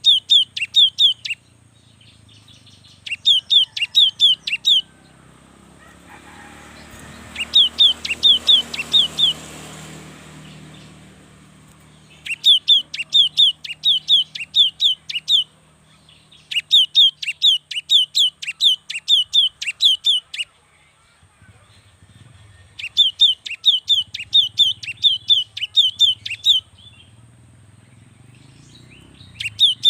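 Cinereous tit (gelatik batu) singing: seven phrases of rapidly repeated sharp, down-slurred notes, each lasting one to four seconds, with short pauses between. A faint hiss swells and fades about a third of the way in, and a thin steady high tone runs underneath.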